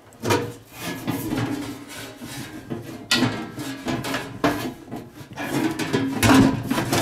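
Sheet-metal side panel of an old PC tower case scraping and clattering as it is worked loose and slid off, after a screwdriver turns out a rear case screw. Sharp metal knocks come about three seconds in and again near the end.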